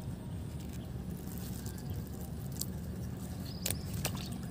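Quiet outdoor background: a steady low rumble, with a few faint clicks about three and a half to four seconds in.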